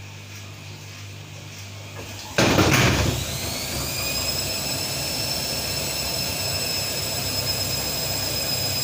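AEG Öko-Lavamat 538 front-loading washing machine running: a low steady hum, a loud rush about two and a half seconds in, then a steady high motor whine that rises slightly as the drum comes up to spin speed.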